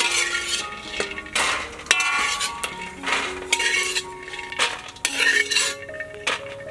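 Metal spatula scraping and stirring peanuts dry-roasting in a steel wok, in repeated short strokes, with the nuts rattling against the metal. Background music with plain held notes runs underneath.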